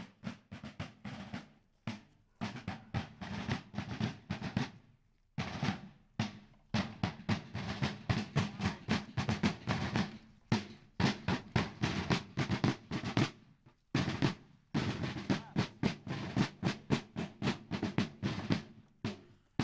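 Snare and bass drums playing a marching cadence, rapid strokes and rolls in phrases broken by several brief pauses.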